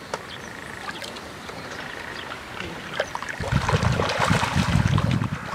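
Herabuna (Japanese crucian carp) splashing in shallow, weedy water during their spawning run: scattered small splashes at first, then a loud burst of churning splashing from about three and a half seconds in.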